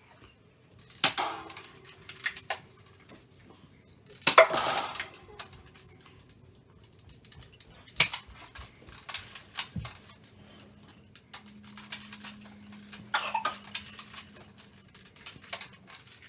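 Nerf blaster being loaded, primed and fired, with foam darts knocking into plastic toy targets: a string of sharp clicks and clacks, about five louder knocks among many small ticks, the loudest about four seconds in with a short rattle after it.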